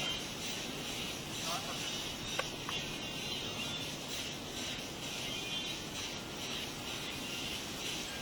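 Steady hiss of blizzard wind and snow, with one faint click about two and a half seconds in.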